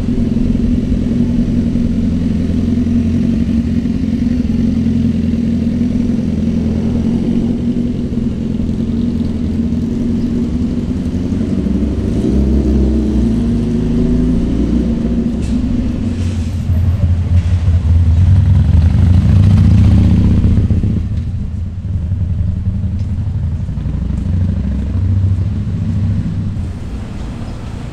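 Car and motorcycle engines in street traffic, running with a low steady engine note. The sound swells as a vehicle passes close about two-thirds of the way through, then eases off.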